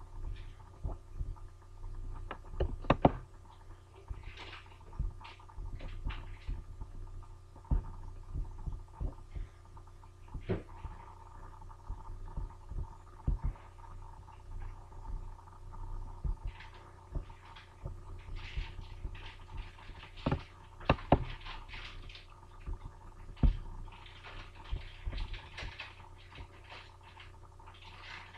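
Computer mouse clicks at irregular intervals over a steady low electrical hum; a few clicks are louder, about three seconds in and again around twenty-one seconds.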